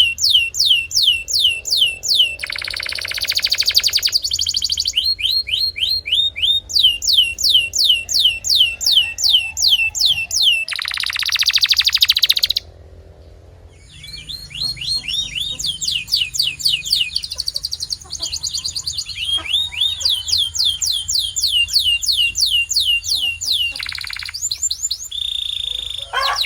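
Canary singing: runs of rapid, high downward-sweeping notes repeated about five times a second, twice broken by lower buzzing rolls, with a short pause about halfway through.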